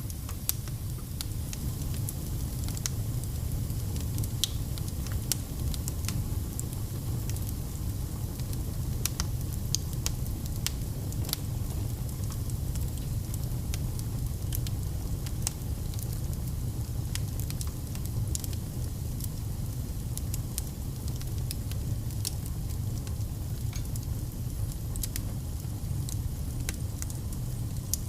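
Fire burning in a fireplace: a steady low rumble with scattered sharp crackles and pops at irregular intervals.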